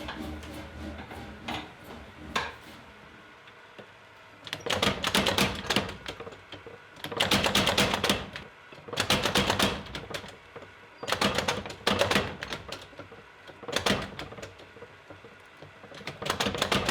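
Power hammer striking metal in quick runs of blows, each run lasting a second or so, with short pauses between.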